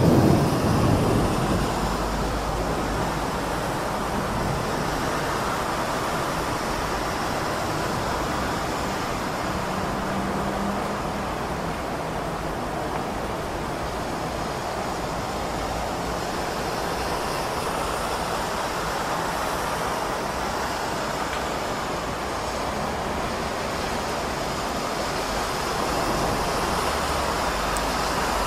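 Heavy rain falling over city traffic: a steady hiss of rain mixed with the wash of passing cars. A louder low rumble comes right at the start and dies away within about two seconds.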